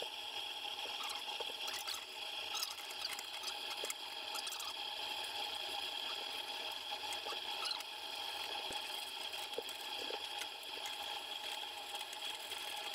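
Steady low-level background hum with a faint high whine, broken by a few light clicks and scrapes as gloved hands handle a nut and washer against the exhaust heat shield under the car.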